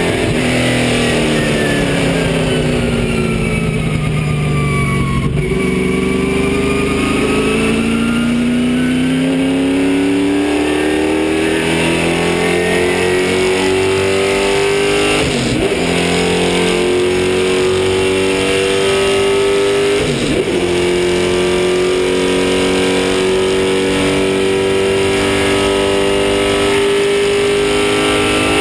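Race car engine heard from inside the stripped, caged cockpit, dropping in revs for a corner over the first few seconds, then accelerating hard with an upshift about halfway through and another a few seconds later. It then runs at high revs, slowly climbing.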